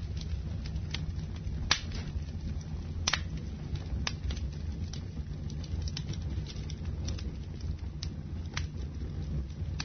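Wood fire in a fireplace crackling, with sharp pops scattered irregularly over a steady low rumble.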